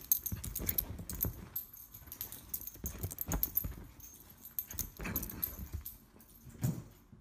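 A puppy playing with a blanket on a bed: irregular rustling and scuffling of fabric, with light clicks.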